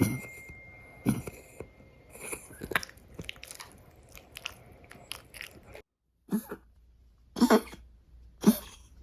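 An elderly dog coughing: light clicking and hacking sounds at first, then three loud harsh coughs about a second apart near the end. It is the chronic cough of a 13-year-old dog with stage B2 heart disease, which the owner calls a goose-honk cough, as if vomiting.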